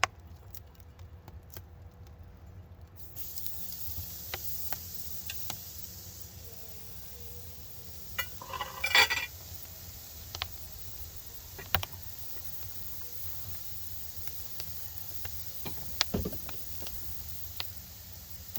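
Sirloin steak sizzling with a steady hiss over a wood fire, starting about three seconds in, with scattered crackles and clicks. A louder noisy burst comes about nine seconds in and a dull thump near the end.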